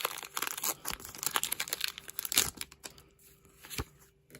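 A foil Pokémon booster pack being torn open and crinkled by hand: dense crackling for the first couple of seconds, then quieter rustling with a single sharp tap near the end.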